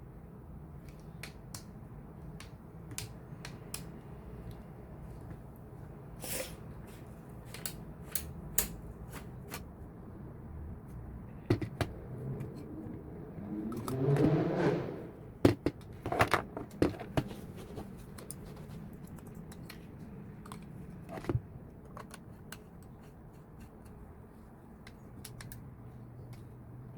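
Hands handling a lightstick and its plastic packaging: scattered small clicks and taps, with a louder burst of rustling and clicking about halfway through.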